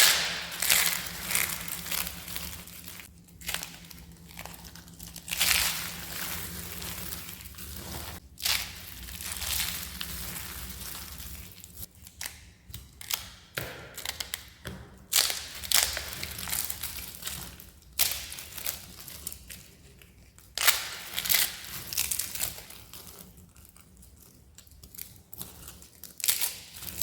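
Dry, crispy soap being crushed and crumbled: a run of sharp crunches in irregular bursts, about one to two seconds apart.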